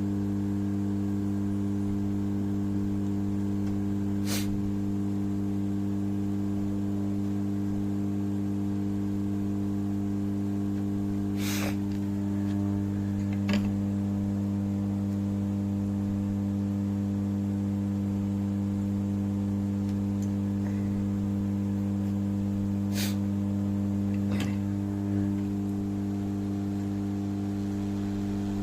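A steady electrical hum made of several even tones, with a few light clicks and taps scattered through it.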